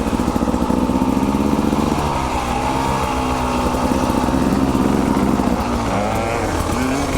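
Two-stroke dirt bike engine running under way, its revs rising and falling with the throttle.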